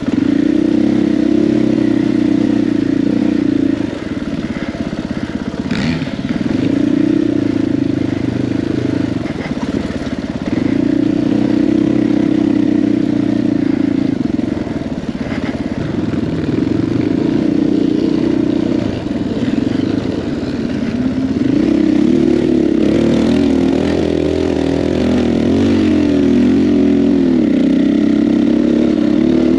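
KTM 500 EXC-F dirt bike's single-cylinder four-stroke engine riding on and off the throttle: it pulls for about three seconds, eases off briefly, then opens up again, its pitch rising and falling. A single sharp knock about six seconds in.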